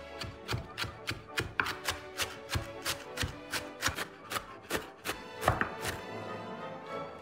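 A knife chopping on a cutting board in a quick, even rhythm of about three or four strokes a second, stopping about a second before the end.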